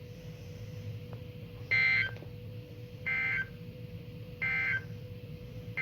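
Three short bursts of warbling digital data tone from a weather radio's speaker, about a second and a half apart: the Emergency Alert System end-of-message code that closes the warning broadcast. A faint steady hum runs underneath.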